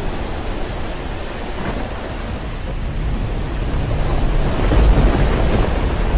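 Steady rushing noise with a deep low rumble, a storm-like sound effect, growing louder from about three seconds in.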